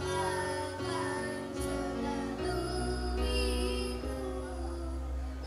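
A young boy singing a slow song about a teacher into a microphone over an instrumental backing track.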